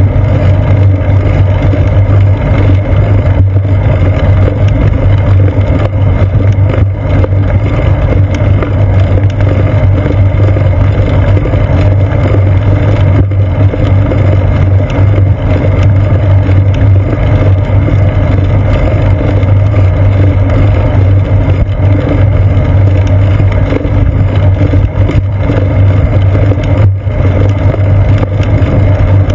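A steady, loud low rumble of wind and road vibration, picked up by a seat-post-mounted GoPro Hero 2 in its housing as the bicycle rolls along pavement.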